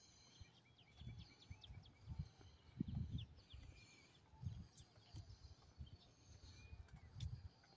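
Faint outdoor ambience of small birds chirping and twittering, busiest in the first few seconds, with irregular low rumbling thumps on the microphone, the strongest about three seconds in.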